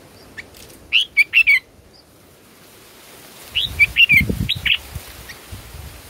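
Red-whiskered bulbuls chirping at the nest: a quick cluster of short, sweeping chirps about a second in and another around four seconds in. A low rumble sits under the second cluster.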